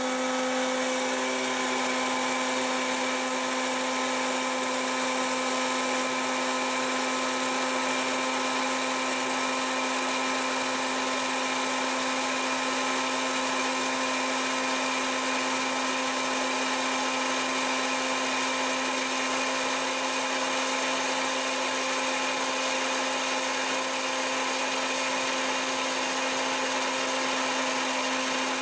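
Electric hot-air popcorn maker running: its fan motor holds a loud, steady whine over a rush of blown air. The kernels are still heating and are not yet popping.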